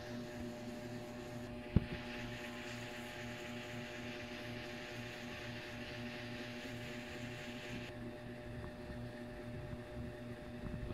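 A steady low hum with evenly spaced overtones, broken by a single sharp click about two seconds in; a faint hiss joins it for several seconds in the middle.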